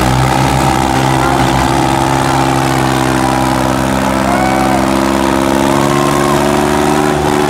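Diesel tractor engines running flat out under heavy load in a tractor tug-of-war, pulling hard enough to lift the front wheels. The engine note is steady and rises slightly in pitch over the second half.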